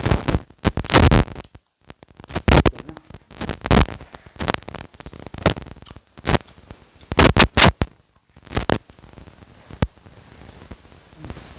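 Close-miked eating of fish curry with gravy, heard as loud, irregular crackles and pops in clusters that thin out near the end. The uploader blames the crackly sound on a loose microphone.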